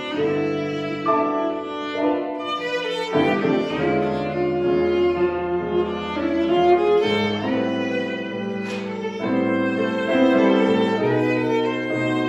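Viola and grand piano playing a blues piece together: a bowed viola melody over piano accompaniment.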